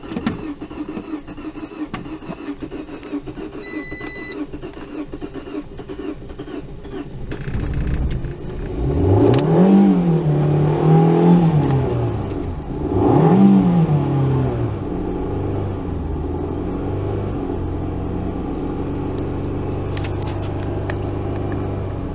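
Fiat 500 engine running unevenly at low revs just after starting, struggling to stay running on a weak, worn-out battery; a short electronic beep sounds about four seconds in. About eight seconds in it is revved up three times, then settles to a steady idle.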